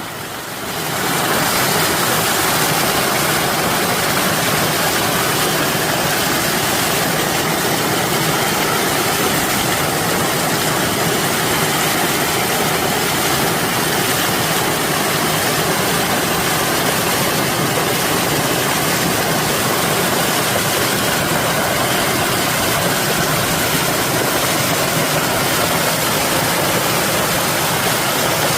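Steady rushing water, a dense even roar that swells up over the first second and then holds unchanged.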